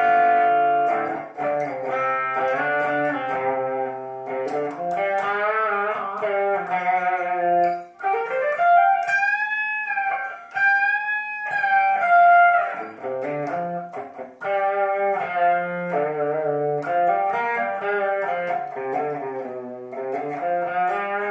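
Guitar music: a melody of plucked notes and chords over lower notes, with a couple of long notes bent up and down about nine to twelve seconds in.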